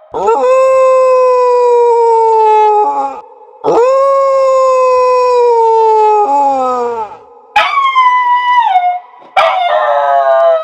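A dog howling: four long howls in a row. Each starts with a quick rise, then holds and slides slowly down in pitch. The third is higher than the others and drops steeply at its end.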